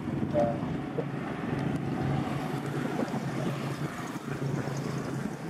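Steady low hum of a vehicle engine running close by, mixed with wind rumble on the microphone.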